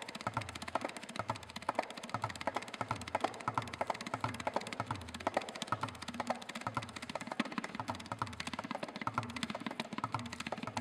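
Tabla played with both hands: a quick, steady run of sharp treble strokes on the dayan over deep bass strokes on the bayan that come about twice a second.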